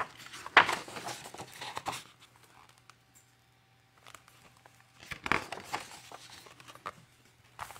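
A picture book being handled and its pages turned, a papery rustling and crinkling in two spells: one in the first two seconds, another about five seconds in.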